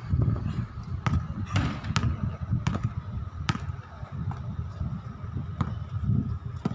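A string of sharp knocks or slaps at irregular intervals, over a steady low rumble.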